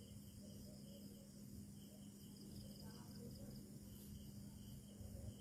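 Faint night insects chirping in a steady, rapid pulsing rhythm, over a low steady hum.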